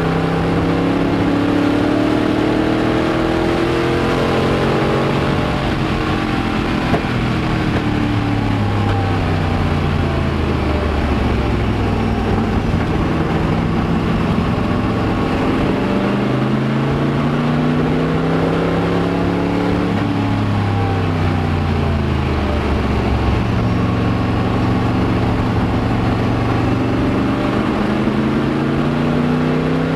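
Daytona Coupe race car's V8, heard from inside the cockpit at racing speed, with revs rising and falling several times: falling as the car slows for a corner, climbing hard out of it and onto the straight, falling again, then climbing once more near the end.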